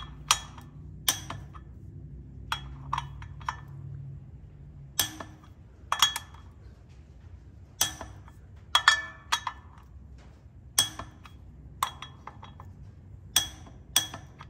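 Sharp metallic clicks and clinks at irregular intervals from wrench and screwdriver work on the flex plate bolts, as they are torqued with the flex plate held by a screwdriver.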